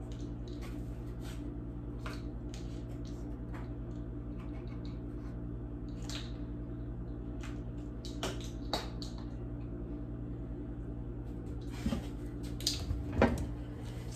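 Kitchen handling sounds: scattered light clicks and taps as ingredient packages and utensils are handled at the counter, over a steady low hum. Near the end, several louder bumps and knocks as the phone filming on its tripod is jostled.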